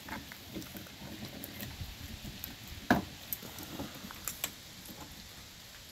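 Dogue de Bordeaux puppies gnawing and scrabbling at raw knuckle bones on a wooden deck: scattered soft clicks and taps, with one sharper knock about three seconds in.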